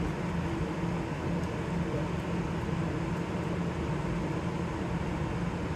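Steady fan and machinery noise from commercial kitchen equipment: a constant low hum under an even rush of air.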